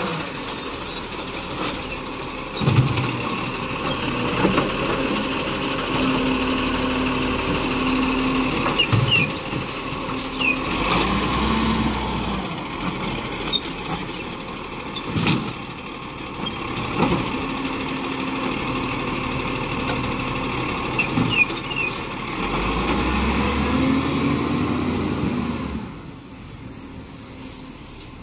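Garbage truck at work: the engine revs up and down, a steady whine holds for a couple of seconds, there are sharp clunks and knocks, and short hisses of air, the whole cycle heard twice.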